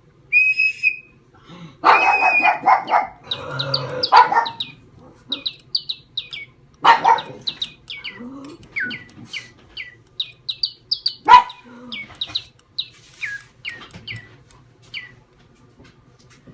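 A dog barking loudly in bursts at a Spin Master Digi Birds electronic toy bird, which tweets a string of short, quick, falling chirps between the barks. A short steady whistle-like note sounds at the very start, and the loudest bark comes about eleven seconds in.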